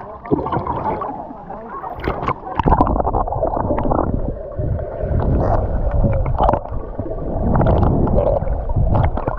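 Water splashing, then the muffled gurgle and rumble of water heard through a microphone held underwater, with short bubbly clicks. The camera goes under about two and a half seconds in and comes back up near the end.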